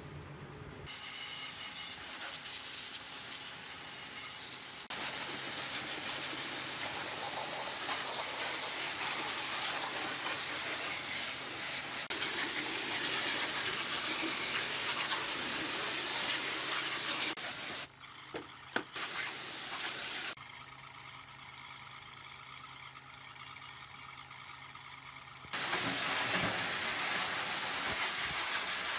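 Pressure-washer jet spraying water onto a television's circuit board and plastic cabinet, a steady hiss with the machine's motor humming underneath. The spray drops away for a few seconds past the middle, with a few clicks, then comes back loud near the end.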